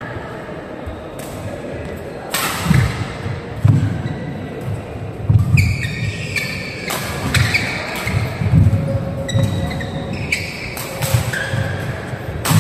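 Badminton rally in a large hall: sharp racket hits on the shuttlecock every second or so, with players' feet thudding on the court and voices in the background.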